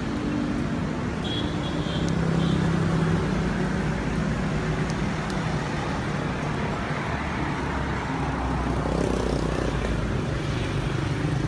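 Road traffic noise: motor vehicles running past, a steady rumble with a low engine hum that rises and falls.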